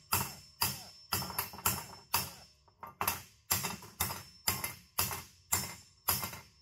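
A cast iron piece with a fresh weld being struck hard and repeatedly, about a dozen sharp metallic bangs roughly two a second, each with a short ring, as a test of whether the weld holds.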